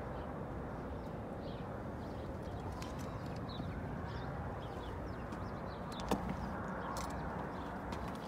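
Steady outdoor background noise with faint, short chirps of small birds, and one sharp click about six seconds in.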